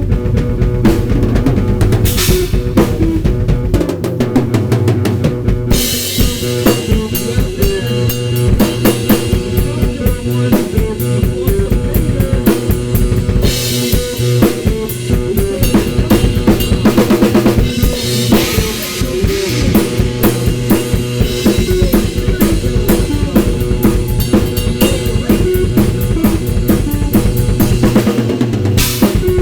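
Improvised rock drumming on a Gretsch/Ludwig kit: bass drum, snare and rimshots, with Paiste cymbals washing in from about six seconds in. A sampled guitar riff triggered from a Roland SPD pad plays underneath.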